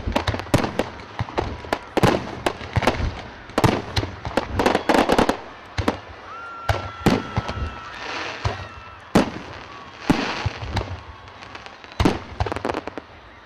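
Fireworks display with fireball effects: a rapid run of sharp bangs and crackling, thickest in the first six seconds, then sparser, with single loud bangs about nine and twelve seconds in.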